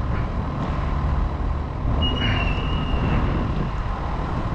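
Steady low rumble of a heavy vehicle running nearby, with a brief high-pitched squeal about two seconds in that lasts about a second.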